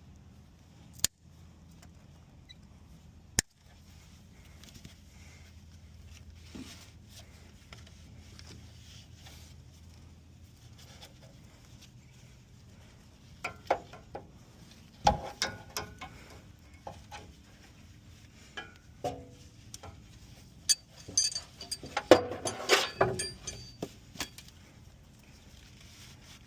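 Hands-on work noise: scattered sharp clicks and knocks, then a busier bout of clattering and rustling near the end, over a faint steady hum.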